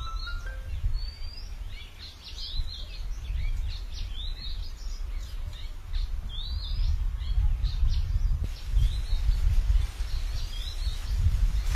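Birds chirping over and over in short, rising calls, over a loud, uneven low rumble.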